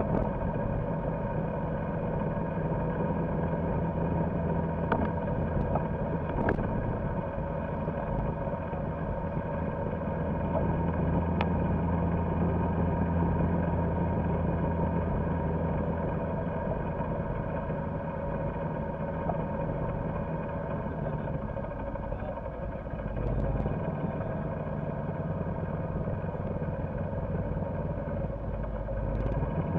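Golf cart driving along a paved road, its motor running with a steady low hum that dips about 22 seconds in and then picks up again.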